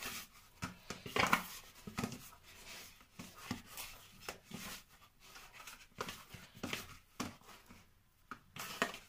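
Hands kneading and pressing soft yeast pizza dough in a plastic bowl: a string of short, irregular squishing and scuffing sounds.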